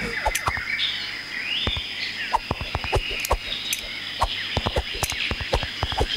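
Cartoon soundtrack of jungle-like bird chirps and insect trilling, broken by a stream of irregular sharp clicks and knocks, several with a low thump.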